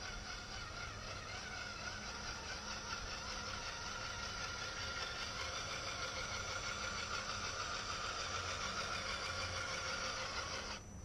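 Radio-controlled scale 4x4 trucks driving over gravel: a steady electric-motor and gear whine with a gritty hiss, slowly getting louder, that cuts off suddenly near the end.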